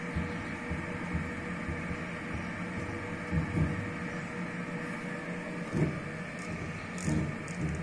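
Tool-room milling machine running, its end mill cutting a block: a steady machine hum with a faint steady tone, broken by a few short low thumps.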